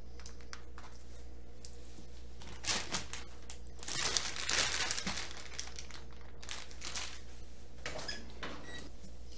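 Clear plastic vacuum-seal bag crinkling as it is handled and crumpled up. The rustling comes in short spells, the longest about four to five seconds in, with briefer ones around three and seven seconds in.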